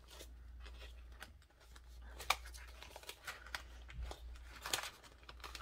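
Paper banknotes rustling and flicking as they are counted by hand and tucked into a clear plastic binder envelope, with a few sharper crisp flicks among the soft rustles.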